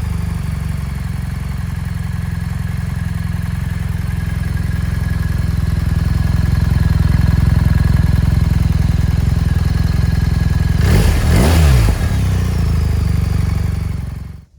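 BMW R1300 GS boxer-twin engine idling steadily through an Akrapovic exhaust with the dB killer removed, with one quick throttle blip late on. The sound cuts off suddenly near the end.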